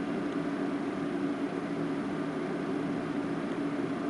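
Steady background hum over a hiss, one low tone held unchanged, as from a fan or other small running machine.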